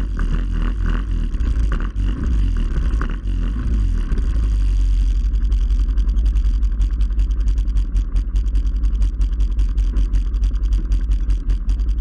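Off-road vehicle riding a dirt trail, its engine running under a heavy low rumble. About five seconds in, the sound turns into a fast, choppy pulsing with ticking on top.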